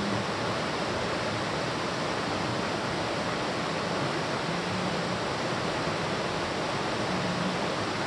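Mountain stream water running steadily over a gravel and rock bed: a constant, even rush of water.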